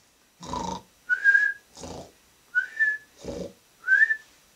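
A woman imitating a sleeper's cartoon snoring with her voice: three rounds of a breathy snore, each followed by a short, slightly rising whistle.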